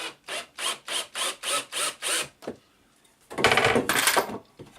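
A hand tool works the piece in rhythmic rasping strokes, about three a second, for two seconds. After a short pause, a louder burst of noise lasts about a second.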